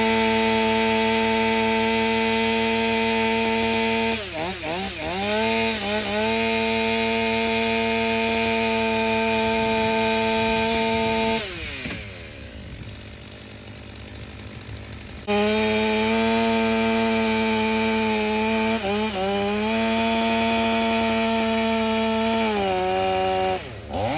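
Two-stroke chainsaw running at high revs, its pitch sagging briefly a few times as if under load. About halfway through it drops back to idle for a few seconds, then revs up again.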